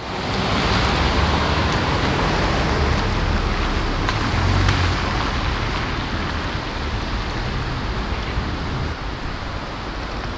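Steady hiss of rain outdoors, with a low rumble underneath.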